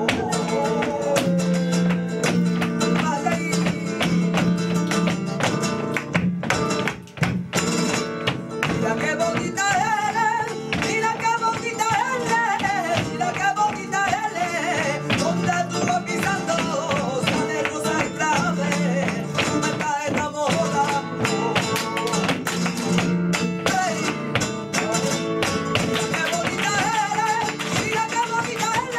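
Live flamenco fandangos de Huelva: flamenco guitar strumming over steady sharp percussive clicks, with a singer's wavering, ornamented line coming in about nine seconds in and again near the end.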